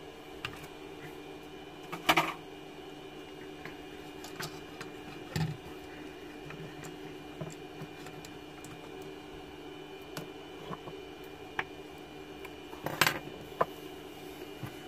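Clicks and knocks of laptop motherboards and metal parts being handled and set down on a wooden workbench. The loudest knocks come about two seconds in and near the end, over a steady electrical hum.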